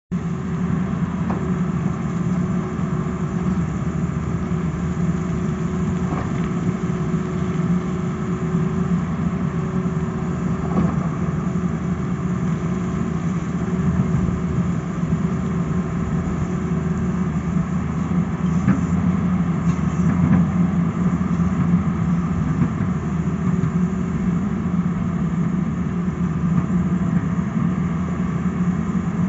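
Tata Hitachi tracked excavator's diesel engine running steadily as it works its bucket, with a steady higher hum that fades out about halfway through and a few faint knocks.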